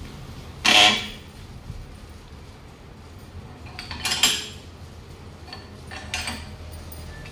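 Steel bar clanking against the screw clamp of a tyre vulcanizing press as the clamp is turned tight onto the tyre: three ringing metal strikes, the first the loudest, the middle one a double hit, over a low steady hum.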